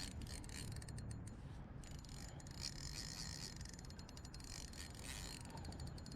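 A fishing reel being cranked to bring in a hooked fish, a faint fast mechanical clicking and whirring of the reel's gears.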